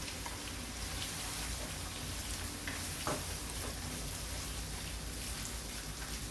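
Chopped onions sizzling in hot oil in a karai, a steady frying hiss as they begin to cook, with a faint knock about three seconds in.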